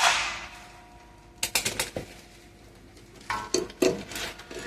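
Steel tool sockets clinking and clattering as they are handled: a loud metallic clank at the start that rings out for about a second, then two short runs of rattling clinks.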